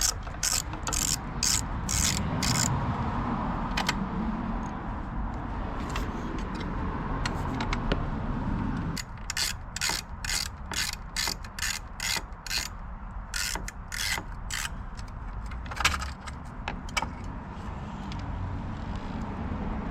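Ratchet handle clicking in quick, even runs as it turns the T15 Torx bolts on a Jeep Wrangler JK's headlight bezel: one run near the start and another about halfway through, over a steady low rumble.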